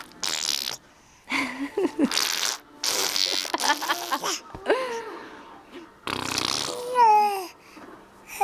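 A baby blowing raspberries with her lips, making fart sounds in about half a dozen short buzzing bursts, with a couple of short falling vocal squeals between them.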